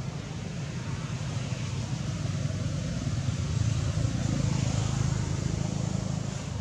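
Steady road-traffic rumble with tyre hiss, swelling as a vehicle passes about halfway through, then easing off.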